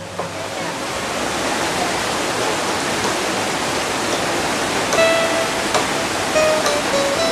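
Rushing water of the Gitgit waterfall stream cascading over rocks, a steady dense rush that swells up at the start. About five seconds in, plucked-string music notes come in over it.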